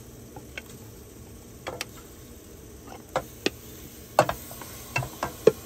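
A green spatula scraping and tapping against a white bowl as pieces of browned lamb are tipped into a stainless steel pot: a handful of scattered light clicks and knocks over a low, steady background, the loudest about four seconds in.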